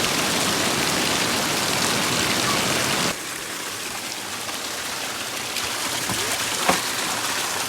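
Seasonal river water rushing in a steady, even noise, dropping suddenly to a lower level about three seconds in.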